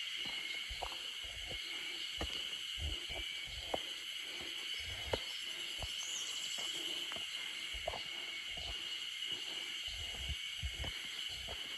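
A steady, high-pitched chorus of insects droning without a break, over irregular low thuds, the kind that footsteps on a trail make.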